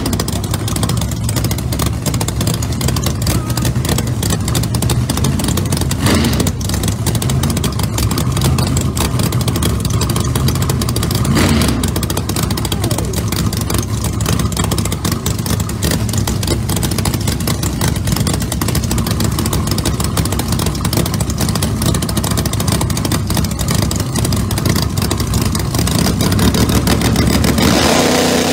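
Pro Mod drag car engines idling loudly with a choppy, lumpy beat while staged, with short throttle blips about 6 and 11 seconds in and the level building near the end.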